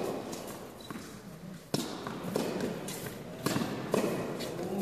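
Tennis ball being struck by rackets and bouncing on an indoor hard court during a doubles rally: several sharp pops, the loudest nearly two seconds in, with a short echo from the large hall.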